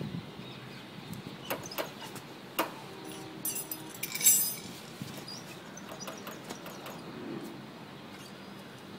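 Spanner clicking against a motorcycle rear brake caliper's bleeder valve as it is opened and tightened while bleeding brake fluid, with a louder metallic clink about four seconds in.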